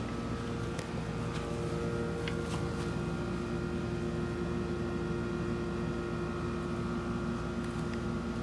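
Steady mechanical hum with several held tones, from a running machine such as a fan or air conditioner, with a few faint clicks and taps of handling.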